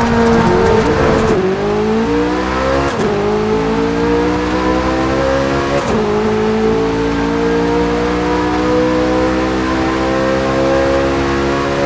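Chevrolet C8 Corvette Z06's 5.5-litre flat-plane-crank V8 accelerating hard through the gears. The engine note climbs, drops at quick upshifts about one, three and six seconds in, then rises slowly and steadily in a higher gear.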